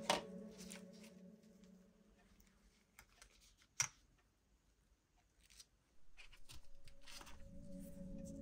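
A few faint, sharp clicks and taps of small parts being handled, spaced a second or more apart. Background music fades out at the start and comes back about six seconds in.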